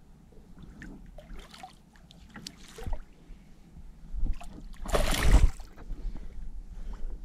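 Small knocks and clicks of a fish and fishing gear being handled on a plastic fishing kayak, with one loud rush of noise about five seconds in.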